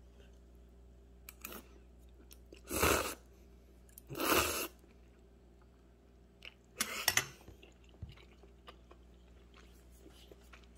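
A person eating spicy chewy noodles topped with crunchy fried flakes. There are three short, loud eating noises spaced a second or two apart, with faint chewing ticks between.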